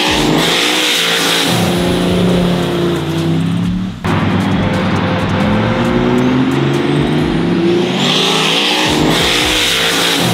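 Two vehicles launching side by side at full throttle, engines revving with the pitch climbing as they accelerate away. The sound breaks off for a moment about four seconds in and picks up again.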